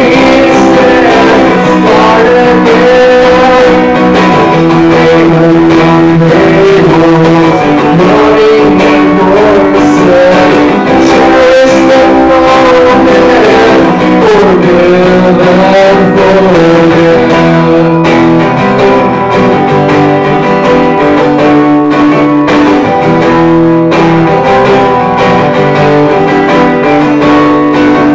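Acoustic guitar played with a man singing, a live solo song through a microphone.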